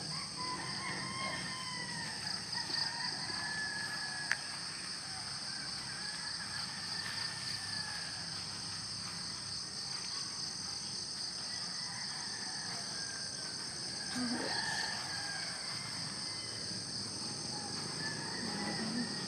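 Outdoor morning chorus: insects keep up a steady high buzz while birds call on and off. A single sharp click comes about four seconds in.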